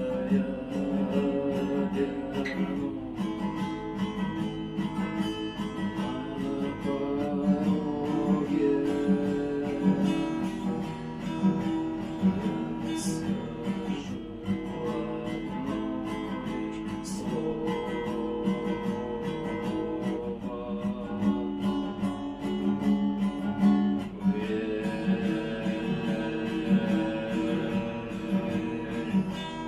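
Acoustic guitar strummed in a steady rhythm, the chords mixed with percussive knocks from muting the strings on the strum.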